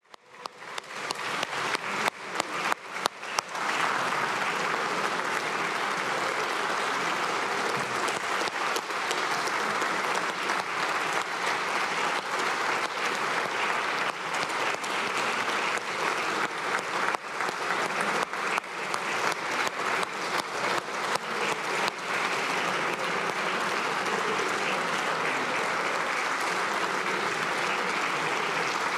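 Crowd applauding: scattered single claps at first, building within about four seconds into steady, sustained applause.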